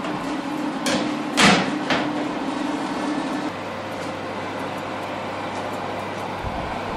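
A baking tray being put into a home oven: a click, a loud metallic clunk about a second and a half in, and a lighter knock, over a steady hum that shifts to a lower hum about three and a half seconds in.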